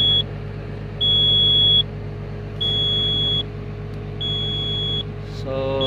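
Komatsu PW180 wheeled excavator's cab warning buzzer beeping steadily, a high beep roughly every second and a half, over the low hum of the running engine. The title puts the warning down to low brake oil pressure.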